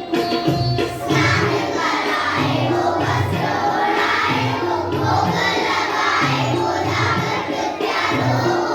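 Indian devotional music with singing voices coming in about a second in, over a steady instrumental accompaniment.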